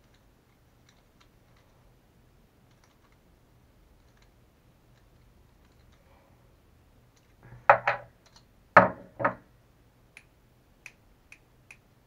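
Small RC truck shock absorber parts handled and fitted together by hand on a workbench: faint clicks, then a cluster of four loud knocks past the middle, followed by four light, sharp ticks near the end.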